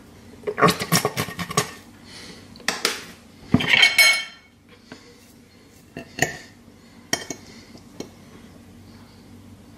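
Cutlery clattering against a plate and dishes in three quick bursts, then a few single clinks.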